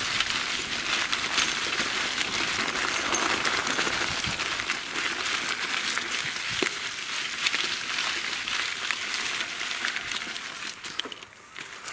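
Bicycle tyres rolling over dry fallen leaves on a woodland trail: continuous crunching made up of many small clicks. It dies down a little before the end.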